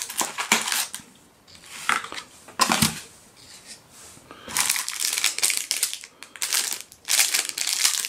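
Light rustles and knocks of cardboard packaging being handled, then a clear plastic bag crinkling in the hands from about four and a half seconds in.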